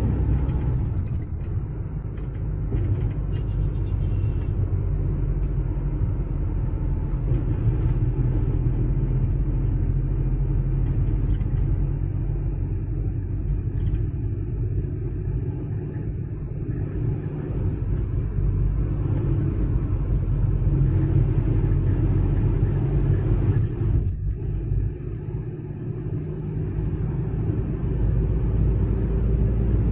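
Steady low road rumble inside a moving coach bus: engine and tyre noise heard from the passenger cabin, with small swells and dips in level.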